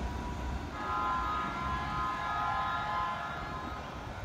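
Keikyu 1000 series electric train sounding its horn: one steady blast of several tones at once, starting just under a second in and held for about two and a half seconds, over the low rumble of the moving train.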